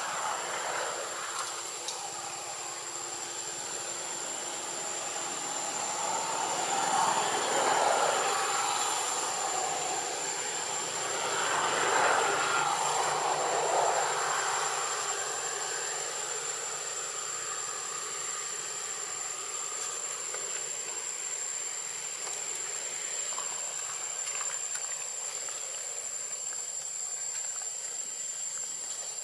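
Outdoor ambience: a steady, high-pitched insect drone over a hiss, with two louder swells of rushing noise about seven and twelve seconds in.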